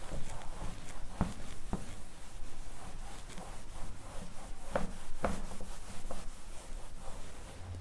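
A whiteboard eraser rubbing across a whiteboard in uneven wiping strokes, with a few light knocks of the eraser against the board.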